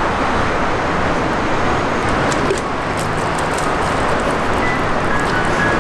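Water running hard from an outdoor tap, spraying and splashing around a bunch of water balloons that fill on the spout; a steady rushing hiss.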